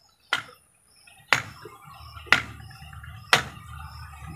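A series of sharp knocks, evenly spaced at about one a second, five in all.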